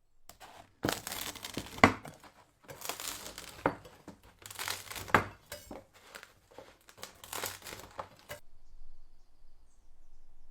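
Crunching and crackling of a crusty loaf being sliced on an antique bread cutter, four cutting strokes with sharp cracks, stopping about two seconds before the end.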